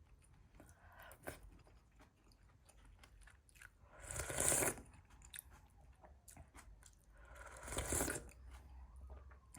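Close-up sounds of someone eating: faint chewing and small clicks, with two louder crunchy bursts, one about four seconds in and one about eight seconds in.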